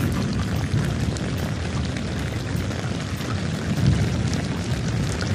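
Strong wind buffeting the microphone: a low, uneven rumble with a steady hiss over it, gusting louder about four seconds in.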